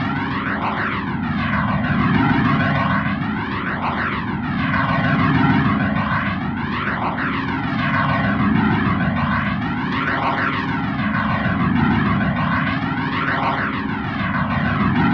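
Dense, loud droning noise from an experimental noise track, swept by a flanger effect. Its whooshing sweep repeats about every second and a half, much like a jet passing overhead.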